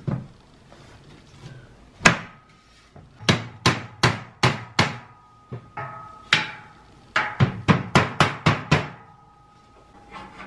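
Mallet blows knocking steel crossbeams into the uprights of a Gorilla Rack boltless shelving frame, with a dozen or more sharp knocks in quick runs of about three a second. The steel frame rings faintly after the blows.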